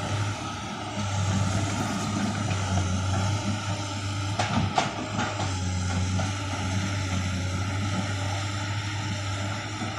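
Komatsu PC200 excavator's diesel engine running steadily under load, with a brief knock or clank about halfway through.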